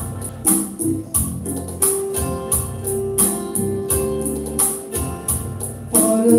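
Instrumental passage of a song's backing music, with a steady beat of short jingling strokes and one note held for about three seconds in the middle. Singing comes in near the end.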